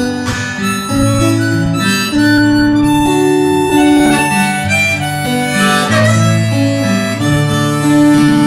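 Harmonica playing a melody over guitar accompaniment, an instrumental break in a live folk song.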